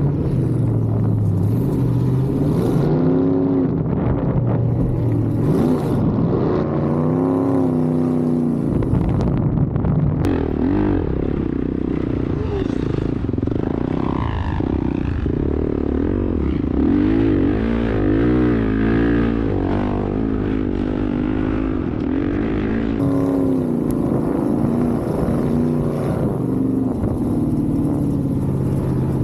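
Dirt bike engine being ridden hard, revving up and dropping back over and over, its pitch rising and falling every second or two over a steady low rumble.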